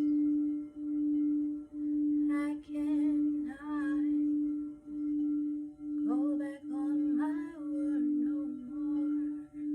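Singing bowl sounding one sustained low tone that swells and fades about once a second.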